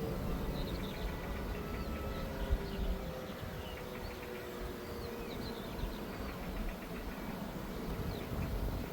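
Distant civil-defence sirens faintly holding a low tone and slowly dying away, over an outdoor background rumble with birds chirping. A single short bump about two and a half seconds in.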